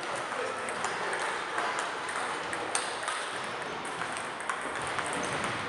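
Table tennis balls clicking off bats and tables, several games going at once: irregular sharp clicks over a steady background of echoing hall noise.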